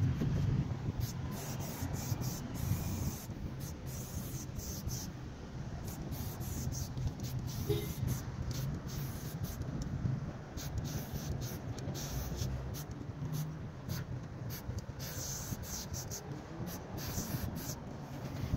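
Aerosol spray paint can hissing in short, irregular bursts as paint is sprayed onto a wall, over a low rumble.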